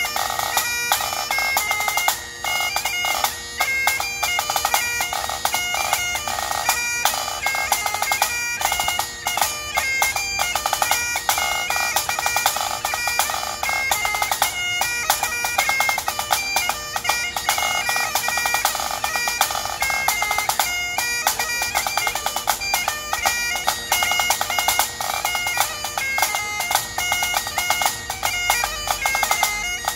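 Great Highland bagpipe playing a quick tune over its steady drones, accompanied throughout by a pipe-band snare drum with a dense run of strokes.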